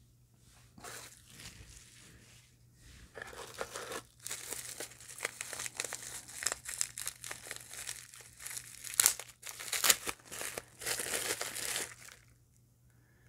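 Plastic bubble-wrap bag crinkling and rustling as it is pulled open and a small jar is slid out of it, with a couple of sharper, louder crackles about two-thirds of the way in. It stops about a second before the end.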